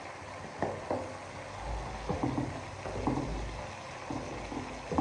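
Chicken pieces cooking in oil in a kadai, with a steady low hiss and a few sharp clicks and knocks of a utensil against the pan. There is a low rumble of handling about a third of the way in.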